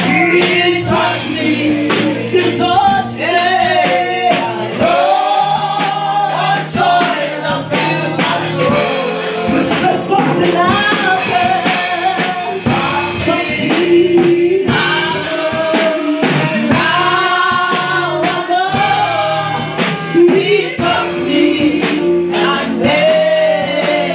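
Live gospel worship song: voices singing into microphones over a band with a drum kit, the drums keeping a steady beat under the melody.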